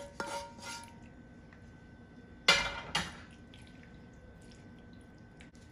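A serving spoon scooping sauced penne into a glass baking dish: a few soft clinks and wet squelches, then a loud clatter of the spoon against the dish about two and a half seconds in, and a smaller knock half a second later.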